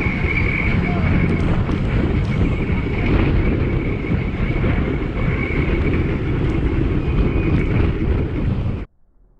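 Wind rumble on the microphone and road noise from a moving e-bike ride, with a steady high whine running underneath. The sound cuts off abruptly near the end.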